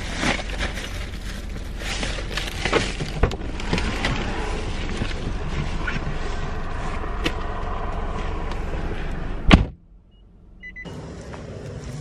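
Rustling and clicking as a delivery bag is handled and someone moves about in a car, over a low steady hum. About nine and a half seconds in there is a single sharp thump, after which the sound drops away for about a second and comes back as quieter steady noise.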